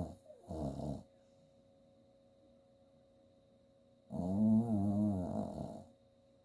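A small chihuahua–Jack Russell terrier mix snoring in her sleep. The end of one snore and a short breath come near the start, then after a pause of about three seconds one long, wavering, pitched snore lasts nearly two seconds.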